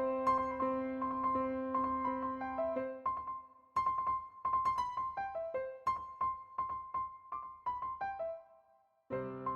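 Background piano music: a melody of short single notes over held low notes. It pauses briefly about three and a half seconds in, and again near the end before starting over.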